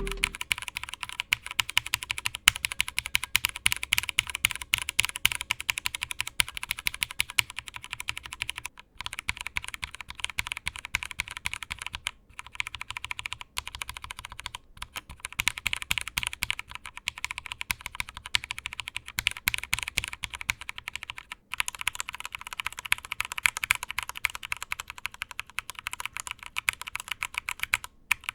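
Fast typing on a mechanical keyboard with cheap New Giant Red linear switches under thick PBT keycaps. The switches are unlubed at first; after a brief pause about 8 seconds in come the lubed switches, which no longer have spring ring. After another pause about 21 seconds in comes typing on Gateron Yellow linear switches for comparison.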